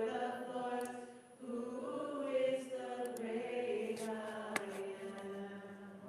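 Women's vocal trio singing a praise hymn together in long held notes, with a short break about a second and a half in.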